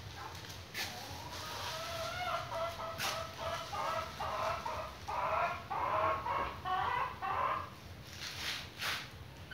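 An animal calling off-screen: a quick run of short pitched calls, about two or three a second, growing louder toward the middle before stopping. There are a few sharp clicks as well.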